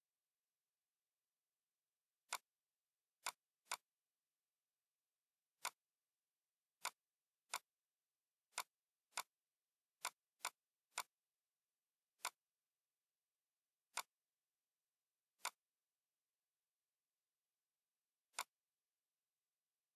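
Computer mouse clicks: about fifteen sharp, single clicks at irregular intervals, with dead silence between them.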